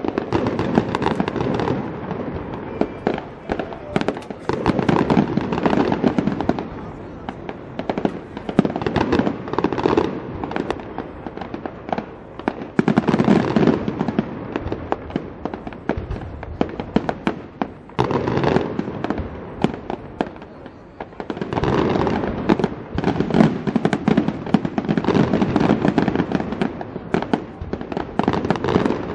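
Fireworks display: rapid volleys of bangs and crackling shells, coming in several waves with short lulls between them.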